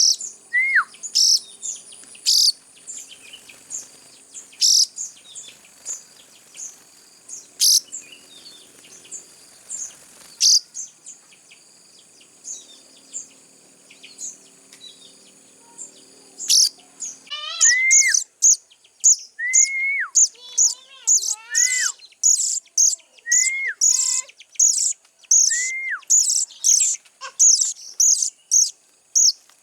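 Young sogon birds chirping: scattered sharp high chirps at first, then from about halfway a rapid run of chirps, roughly two a second, with repeated calls that drop in pitch.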